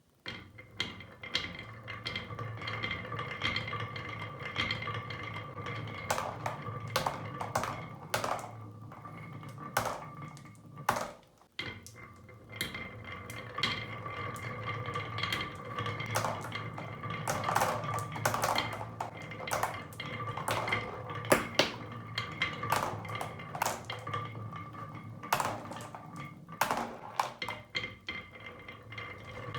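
Marbles rolling along a toy marble run track: a steady rolling rumble with a ringing hum, broken by many sharp clacks as marbles hit the track and each other. The sound drops out briefly about eleven seconds in.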